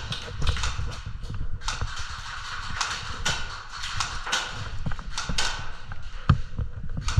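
Irregular knocks and clicks, several a second: a player's footsteps on a hard floor with gear rattling as they move.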